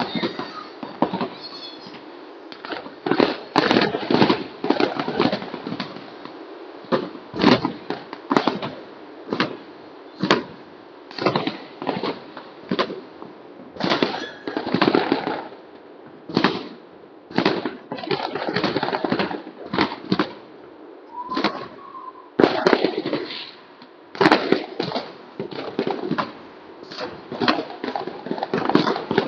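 Fireworks going off in quick succession: sharp bangs and crackles in clusters, one to three a second, through the whole stretch.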